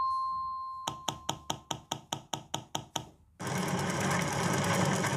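Animation sound effects for a machine at work: a faint steady beep tone with about ten quick, evenly spaced clicks (roughly five a second), then a dense mechanical rattling noise for about two seconds that stops abruptly.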